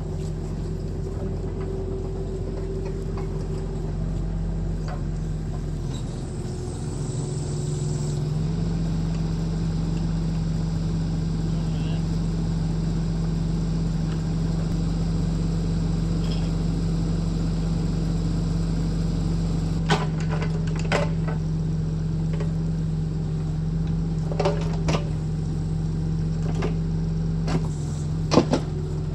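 An engine running steadily. Its pitch steps up a little about seven seconds in and then holds, and a few short knocks or clicks come in the last third.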